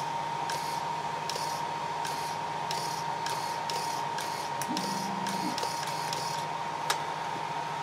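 Steering and throttle servos of a Redcat Lightning STR nitro RC car whirring in short bursts, one or two a second, as the freshly bound transmitter's wheel and trigger are worked. A steady high-pitched tone runs underneath.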